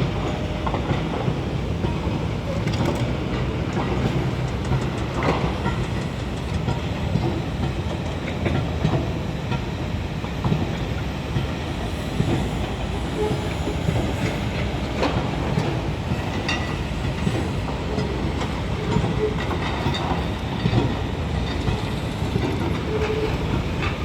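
Pile driving on a construction site: a continuous heavy rumble with occasional sharp knocks.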